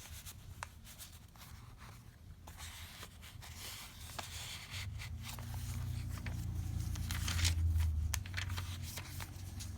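Paper and card rustling and crinkling with light clicks as a handmade junk journal's pages, tags and pockets are handled, over a low rumble that swells in the second half.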